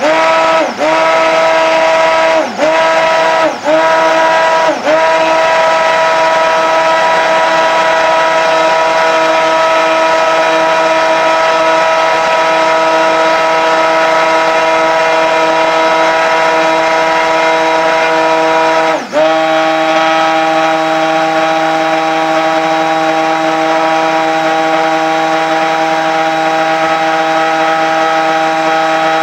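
Stick blender motor running steadily while blending soap batter, pulsed off and straight back on a few times in the first five seconds. About 19 seconds in it cuts out for a moment and restarts at a slightly higher pitch.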